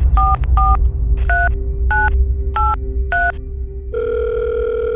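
A phone number being dialled: a quick series of about six touch-tone beeps, each a pair of tones. Then, about four seconds in, a steady ringing tone as the call goes through.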